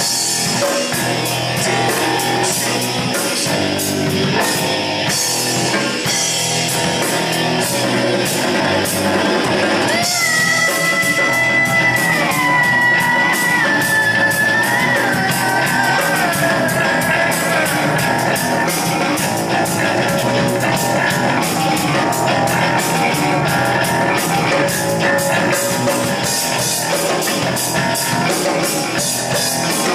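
Live rock band playing loud, with guitar and drums, in a rough, poorly captured recording. About ten seconds in a long high note sets in and bends downward in steps over several seconds.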